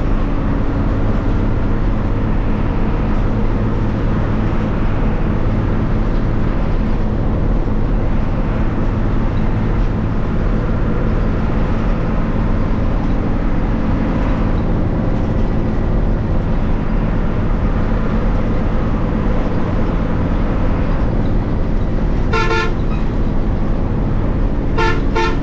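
Bus engine running steadily while under way. About three seconds before the end there is a short horn blast, and a second one starts right at the end; each is a rapidly pulsing horn tone.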